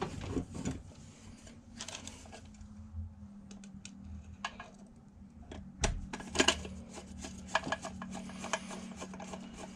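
Hand screwdriver driving screws into a plastic consumer unit: scattered clicks and short scrapes of metal on plastic, with a quick run of sharp clicks about six seconds in. A faint steady hum sits underneath from about three seconds in.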